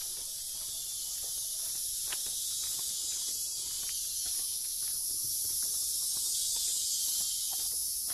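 A steady, high-pitched chorus of insects in summer greenery. Footsteps on paving come through faintly underneath.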